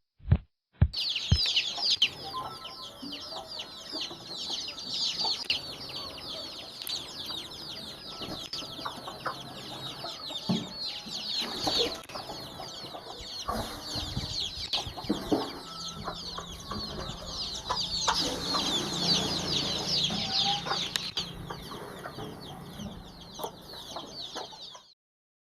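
A brood of domestic chicks peeping continuously in a dense chorus of high chirps, with occasional lower clucks from a hen. It starts about a second in and cuts off abruptly near the end.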